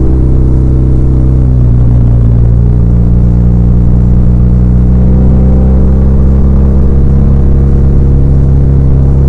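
BMW R1200R's air/oil-cooled boxer twin running under way, its note steady and then rising slowly as the bike gathers speed.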